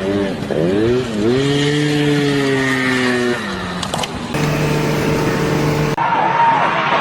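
An engine revving up and down a couple of times, then held at a steady speed for a few seconds before dropping away. It is followed by another engine running steadily.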